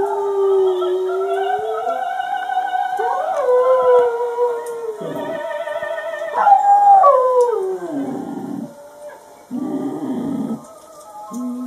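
A dog howling along to opera music: long, wavering howls over a sung voice with vibrato.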